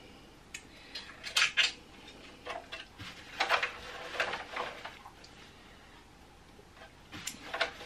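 Small clicks and scrapes of hands and a cleaning swab working inside a sewing machine's open bobbin area, in a few short clusters with quiet between them.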